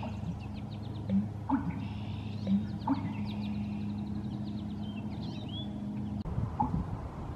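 Small birds chirping and trilling in quick high notes, over a steady low hum that cuts off abruptly about six seconds in.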